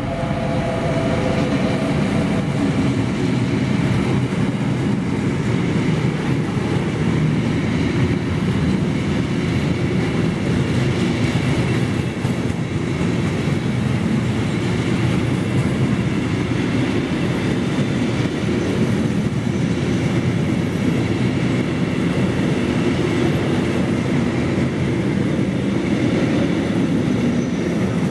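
Long freight train of covered sliding-wall wagons and flat wagons rolling past behind an electric locomotive: a steady, loud rumble and clatter of steel wheels on the rails. The locomotive's faint hum dies away within the first second as the wagons follow.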